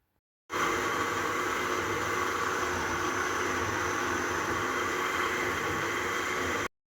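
A small electric motor running steadily, a whirring noise with several fixed tones over a loud hiss. It cuts in abruptly about half a second in and stops abruptly near the end.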